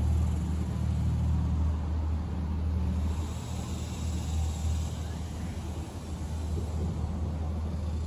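A steady low engine-like hum from a motor somewhere off-picture, over wind hissing through leaves; the leaf hiss swells for a couple of seconds in the middle.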